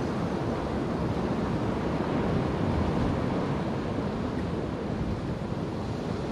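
Sea waves washing and breaking against a rocky shoreline in a steady rush, with wind buffeting the microphone.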